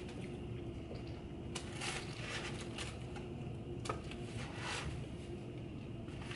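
Soft eating sounds: chewing, with scattered small crinkles and clicks from handling paper burger wrappers and food.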